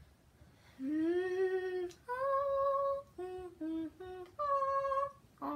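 A girl humming a short tune with her lips closed: a long note about a second in, a held note, three short notes, then a final long note.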